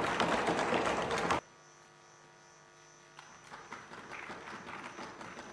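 Applause from assembly members, cut off abruptly about a second and a half in. It is followed by a steady low electrical hum with faint room noise.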